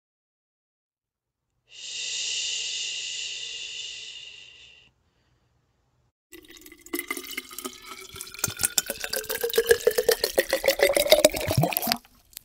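A short hissing whoosh lasting about three seconds, then water poured from a plastic bottle into a glass container, glugging rapidly with a tone that rises steadily in pitch as the container fills, stopping abruptly near the end.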